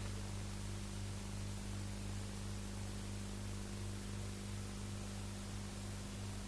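Steady hiss with a low electrical mains hum underneath: the recording's background noise, with no other sound standing out.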